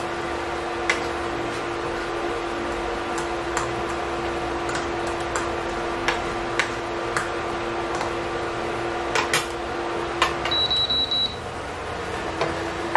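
Induction cooker running with a steady electrical hum, while a fork clicks against a bowl, chopping fried egg. Near the end the cooker gives a quick run of high beeps, and its hum stops for a moment before starting again.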